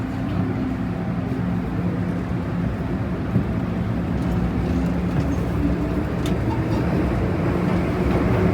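Inside a Metro-Cammell EMU metro train: a steady low running hum with a few steady tones, a motor tone climbing in pitch and the noise slowly growing louder as the train gathers speed.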